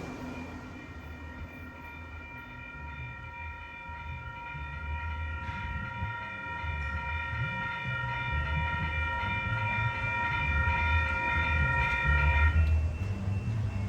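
Railroad crossing warning device sounding one steady high tone for about twelve seconds, then cutting off suddenly, over a low rail rumble that grows louder toward the end.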